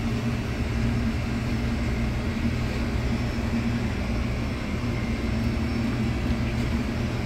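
Steady low mechanical drone of restaurant kitchen machinery, with a constant hum and no change in pitch.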